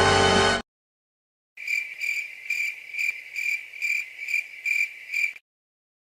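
Cricket chirping in a steady run, about two to three chirps a second, for nearly four seconds: the stock crickets sound effect used in edits to mark an awkward silence. Before it, a music clip cuts off about half a second in, followed by a second of silence.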